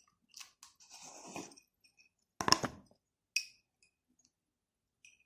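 Kitchen utensils and spice containers being handled: a few light clicks and a short scrape, then a sharp clack about two and a half seconds in and a smaller clink a second later.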